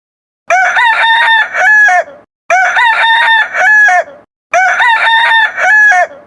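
Rooster crowing sound effect: the same cock-a-doodle-doo played three times in a row, about two seconds apart.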